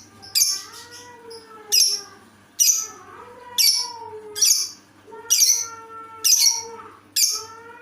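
Lovebird calling with short, shrill chirps repeated about once a second, eight in a row, the unusual voice it is kept for.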